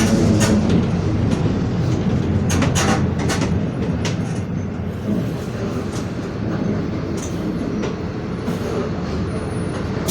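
Mercedes-Benz OF-1721 city bus under way: a steady road rumble with rattles and a few sharp knocks, slowly getting quieter. Its loud differential whine fades out right at the start.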